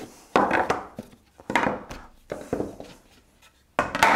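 Wooden speaker-cabinet panels knocking and clattering as a dry-fitted cabinet is pulled apart and the pieces are set down: about four bursts of knocks, roughly a second apart.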